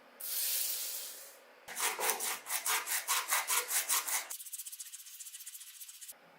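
A short hiss, then hand sanding or rubbing: rhythmic back-and-forth scraping strokes about four a second. Near the end come quicker, lighter strokes that stop suddenly.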